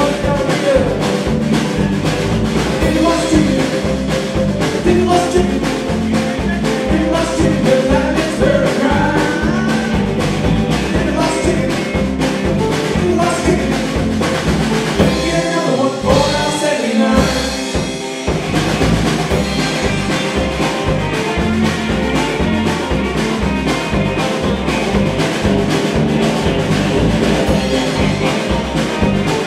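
Live country-rock band playing amplified electric guitars, bass and drums to a steady beat. A little past halfway the drums and bass drop out for about two seconds, then the full band comes back in.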